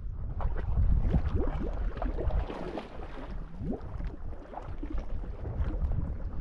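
Small waves lapping and splashing irregularly against shoreline rock, with wind rumbling on the microphone.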